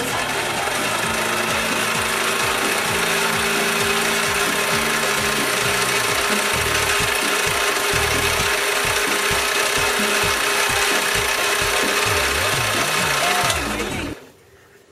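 Metal lathe turning a metal rod against a cutting tool: a steady hiss of cutting with a faint steady tone beneath it, stopping abruptly about a second before the end.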